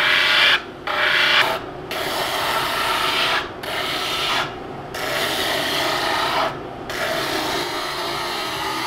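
Drum sander with 36-grit paper abrading a laminated wooden kayak paddle blade as it is pushed across the spinning drum. It makes a coarse hiss in about six passes, with short dips between them and the later passes longer, over the sander's steady hum. The sanding is levelling the blade's power face flat.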